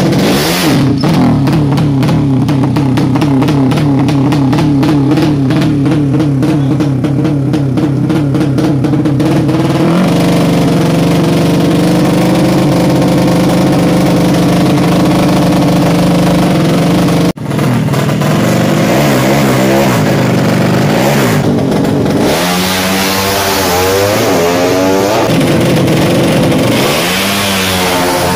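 Modified 200 cc sleep-engine drag bikes. First an engine is held at high revs on the start line, a steady, slightly wavering note that steps to a different pitch about a third of the way in. After a sudden break, an engine revs and accelerates in repeated sweeps, the pitch climbing and then dropping again and again.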